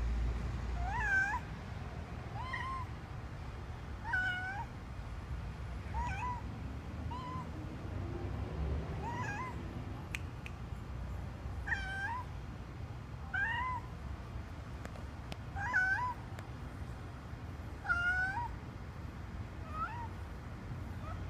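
Siamese cat meowing repeatedly: about a dozen short calls, each rising and then falling in pitch, one every second or two.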